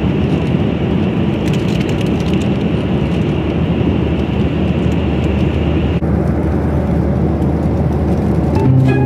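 Steady jet airliner cabin noise from engines and airflow, heard from a passenger seat, with a deep drone and a hiss over it; the hiss thins out about six seconds in.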